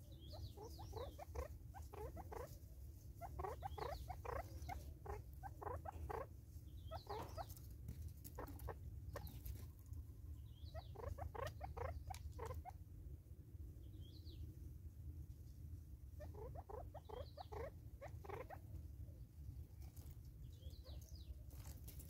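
Natal spurfowl pecking food from a plastic bottle feeder: bursts of rapid light taps, several clusters in a row with pauses between them, over a low steady rumble.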